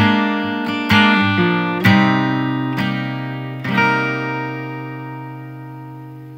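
Guitar music: strummed chords about once a second, ending on a last chord about four seconds in that rings and slowly fades.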